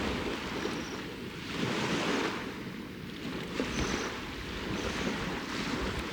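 Small waves washing onto the lakeshore in a slow swell and ebb, loudest about two seconds in, with wind.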